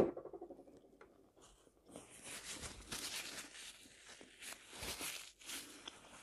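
Faint chewing of a mouthful of food with the mouth closed, in soft irregular bursts starting about two seconds in.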